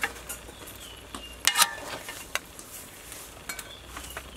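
Metal ladle stirring braised pork and boiled eggs in a metal pot, clinking against the pot a few times, the loudest clink about a second and a half in, over a faint simmer.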